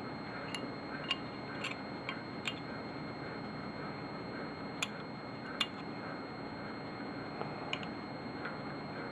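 Faint, scattered metal clicks and taps of an Arisaka rifle bolt's steel extractor being handled and slid into its slot on the bolt. The two sharpest clicks come about five seconds in, over a low steady hiss.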